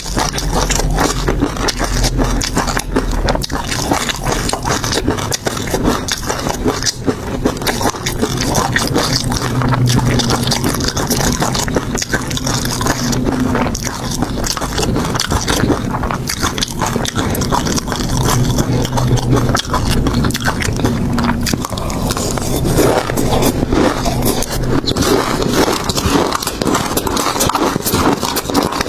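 Close-miked eating of seafood: continuous chewing and crunching with many sharp little clicks and crackles, loud and close.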